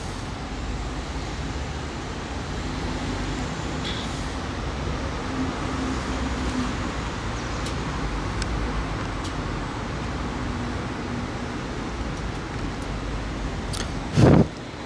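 Road traffic noise: a steady rumble of passing vehicles, with a short loud burst near the end.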